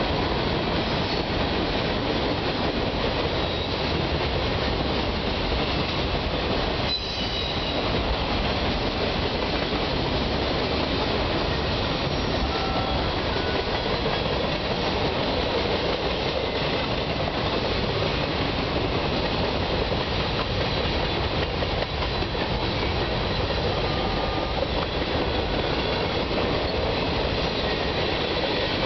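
Freight train of tank cars, covered hoppers and boxcars rolling past: a steady rumble and clatter of steel wheels on the rails.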